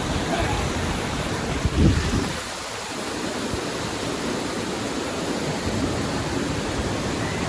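Steady rush of a waterfall, with a brief low rumble just before two seconds in.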